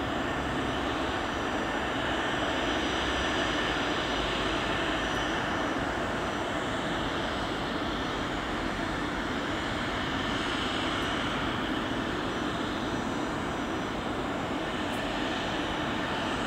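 Twin rear-mounted turbofan engines of a business jet running at taxi power, a steady rushing hiss with a thin high-pitched whine over it.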